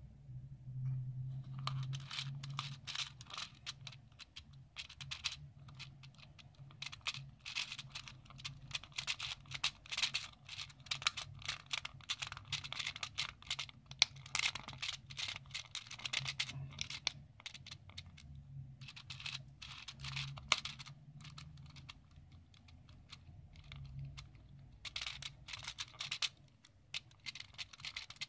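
Plastic pieces of a hand-held intersecting-circles twisty puzzle clicking and rattling rapidly in their clear acrylic track as the two rings are turned, scrambling it, with a few short pauses.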